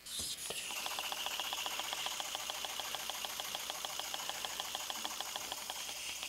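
Small oscillating-cylinder (wobble) model steam engine running on compressed air: a fast, even stream of exhaust puffs and light mechanical clatter that starts up right at the beginning, running on very little air.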